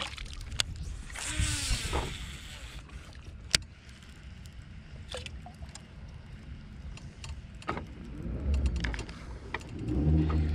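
Handling and cranking of a baitcasting reel, with a few sharp clicks over low rumbling wind and water noise. Near the end a louder, steady low motor hum comes in.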